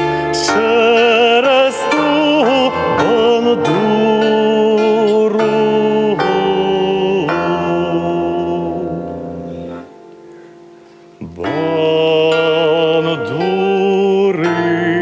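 Bandura being plucked in chords under a sustained, wavering sung melody. The music nearly stops for about a second about ten seconds in, then picks up again.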